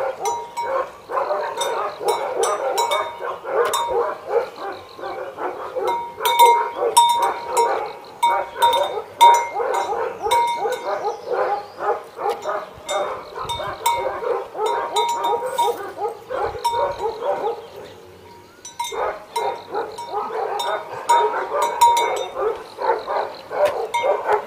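Tibetan mastiffs barking in a rapid, overlapping run, with a quieter lull about two-thirds of the way through. A collar bell clanks and rings among the barks.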